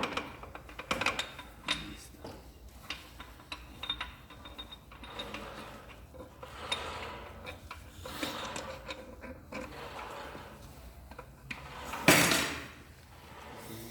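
Metal clinks, knocks and scraping from hand work on a truck engine during piston installation, with a louder scraping clatter about twelve seconds in.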